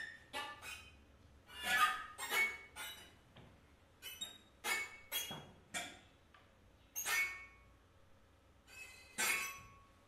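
Contemporary string quartet music made of short, separate squeaks, scrapes and glassy clinks, about one every second, with quiet gaps between.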